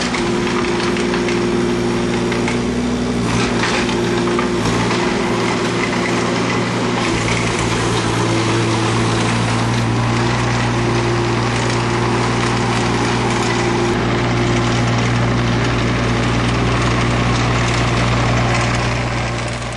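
JCB 8017 mini excavator's diesel engine running steadily at a constant speed, fading out right at the end.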